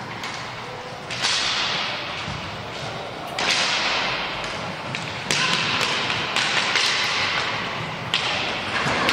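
Roller hockey play: about five sharp knocks of sticks striking the puck, each ringing on in the echo of a large gym, over a steady background of rink noise.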